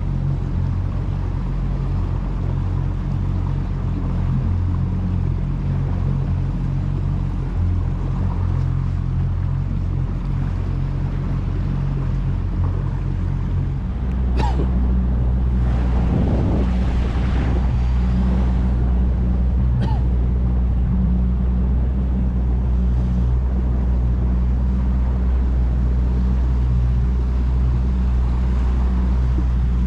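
A motorboat's engine runs steadily as a low hum. About halfway through, the engine note shifts lower and grows a little louder, as with a throttle change. Two sharp knocks and a brief rush of noise come soon after.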